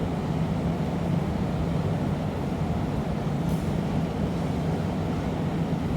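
Steady low roar of a glassblowing workshop's gas-fired furnace and reheating burners running, with a faint tick about three and a half seconds in.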